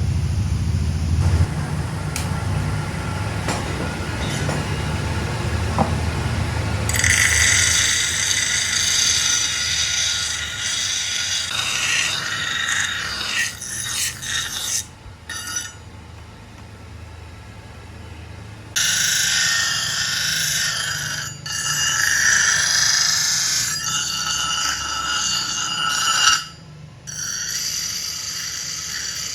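Metalworking machinery in an axe workshop. A low rumble runs for the first several seconds, then a high, harsh noise with ringing tones runs in two long stretches with a quieter pause between.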